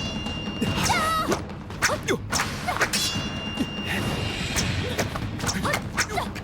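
Hand-to-hand kung fu fight sound effects: a rapid run of punch and kick impacts, thuds and whacks with swishes of moving limbs, over dramatic background music.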